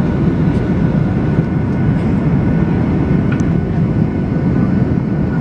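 Steady engine and rushing-air noise of an airliner heard from inside the passenger cabin during takeoff, a dense low rumble with a faint thin whine above it.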